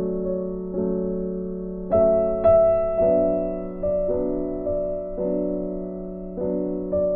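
Slow, gentle background piano music: soft chords struck about once a second and left to ring and fade.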